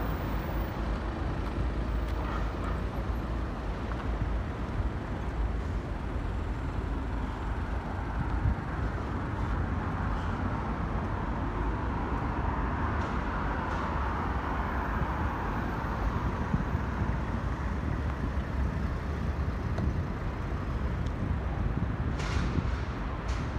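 Steady city traffic noise, a continuous rumble of car engines and tyres, with a louder swell in the middle as a vehicle passes and fades.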